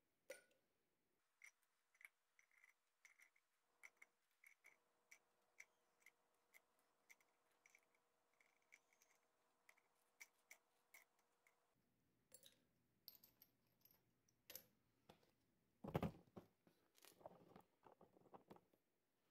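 Faint clinks of small copper pieces and coins dropped one by one into a clay-graphite crucible, about one or two light clicks a second. Near the end come a few heavier knocks and scuffs, the loudest a dull thump about three-quarters of the way through.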